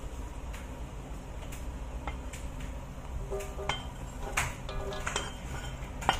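A spatula scraping and tapping on a plastic cutting board and the rim of a wok as sliced carrots are pushed off into boiling broth. The sound is a steady low rumble at first, joined from about three seconds in by scattered clicks and short metallic clinks.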